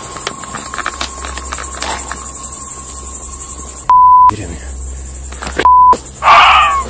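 Crickets chirping steadily, with light footsteps on leaves early on. About four seconds in and again near six seconds a censor bleep tone blanks out swearing, and just after the second bleep comes a loud, high cry falling in pitch.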